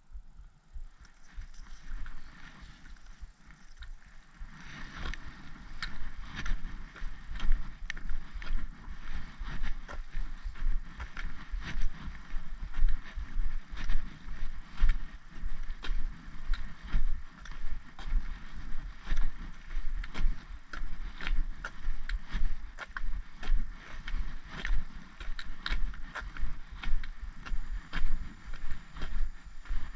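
Footsteps and the tips of trekking poles tapping on a tarmac lane at a steady walking pace, about one and a half taps a second, settling into a regular rhythm about four seconds in. A low rumble runs underneath.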